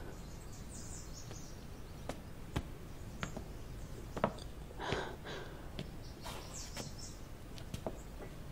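Quiet room ambience with scattered small clicks and soft rustles, and a few faint high chirps around two-thirds of the way through.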